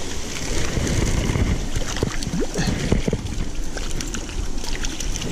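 Water splashing and irregular knocks and clicks as a hooked brown trout is drawn to the bank and netted, over the rush of a small stream.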